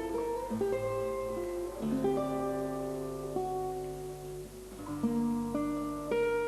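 Background music played on acoustic guitar: plucked notes and chords ringing on over a steady low bass note.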